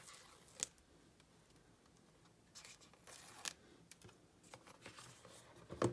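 Protective seal tabs being torn off an iPhone 13 Pro Max's cardboard box: faint scattered tearing, crackling and clicks of paper and card being handled. A cluster of small tears comes about two and a half seconds in, ending in the sharpest snap.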